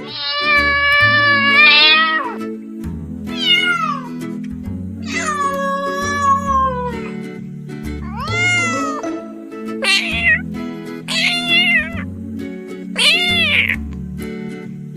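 Domestic cat meowing repeatedly over background music: about seven meows, the first and third long and drawn out, the later ones shorter and higher.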